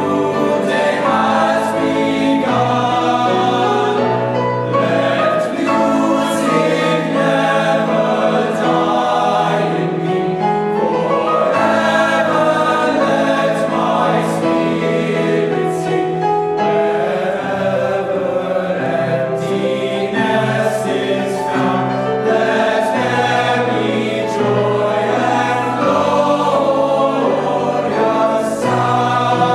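Choir of teenage boys singing in parts, several held notes sounding together as chords that change every second or two, at a steady full level.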